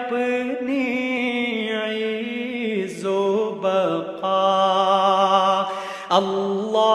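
Devotional naat singing: a voice holds long, wavering notes of a wordless melisma, the pitch stepping down about three seconds in.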